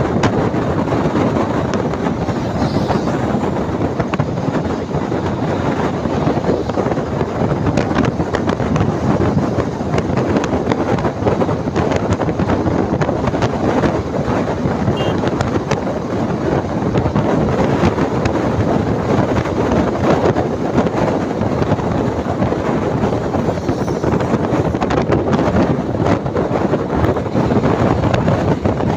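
Steady rush of wind and road noise inside a moving bus, with wind buffeting the microphone at the window.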